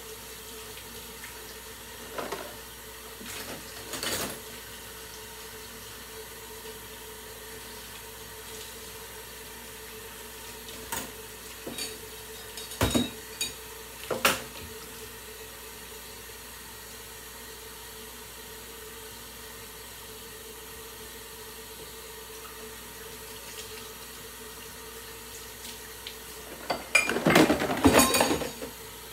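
Kitchen tap running steadily into a stainless steel sink while dishes are washed by hand, with scattered clinks and knocks of dishes against each other and the sink. A louder, busier clatter of dishes comes near the end.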